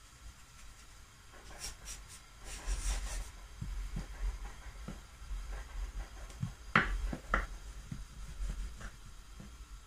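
Floury hands being rubbed together, then dough being pressed and a wooden rolling pin handled and rolled on a worktop: light knocks and thuds, with two sharper knocks about seven seconds in.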